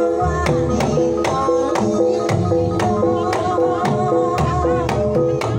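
Banyumasan gamelan music for tayub: a kendang hand drum keeps a steady beat of sharp strokes over held, ringing tones from keyed instruments, while a sinden sings a wavering melody above them.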